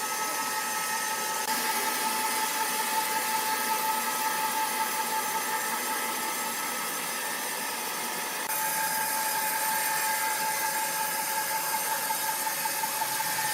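Sawmill machinery running steadily: a continuous mechanical whine over a hiss, its tone shifting abruptly about a second and a half in and again past the middle.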